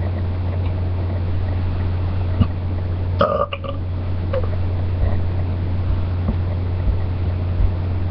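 A person belching, over a steady low drone, with a short higher-pitched sound about three seconds in.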